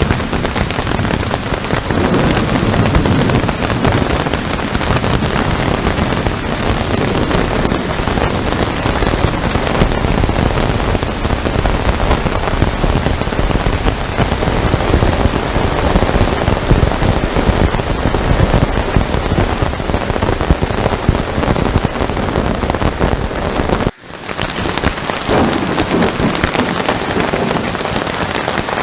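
Heavy rain falling steadily in a dense, unbroken patter. About three-quarters of the way through, the sound drops out for a split second.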